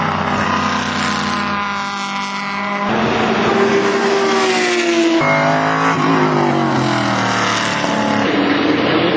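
Racing car engines at high revs as cars pass on the circuit. The engine note climbs, changes abruptly with shifts, then falls in pitch as a car goes by.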